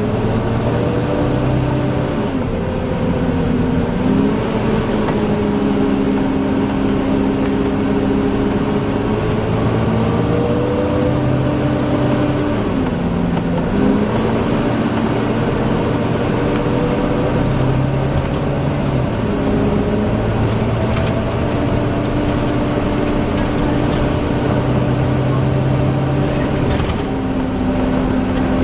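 Volvo Wright Eclipse Gemini double-decker bus running with its loud 'hoover' whine, a vacuum-cleaner-like hum over the engine note. The engine tones climb steadily and drop sharply about three times, at around 3, 13 and 27 seconds, as the bus changes speed.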